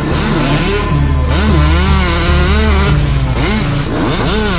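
Off-road vehicle engine revving, its pitch rising and falling again and again, with quick sharp revs about four seconds in.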